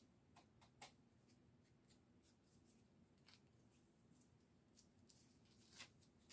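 Near silence, with a few faint, brief rustles and crinkles as gloved hands press and work a hard-wax strip on skin.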